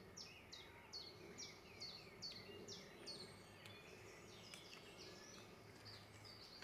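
A songbird singing a rapid series of short, high, downward-slurred notes, about two to three a second, which thins out after about three seconds into fainter chirps over quiet outdoor background.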